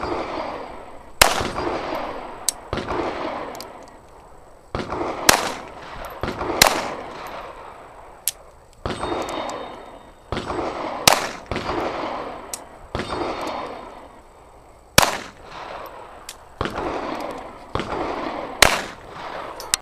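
Handgun shots fired one at a time at an unhurried pace, roughly one every one to two seconds, about a dozen in all, each followed by a long fading tail.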